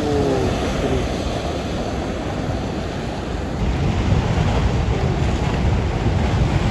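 Steady rushing of a muddy flash-flood torrent (debris flow) down a mountain stream channel, with wind buffeting the microphone.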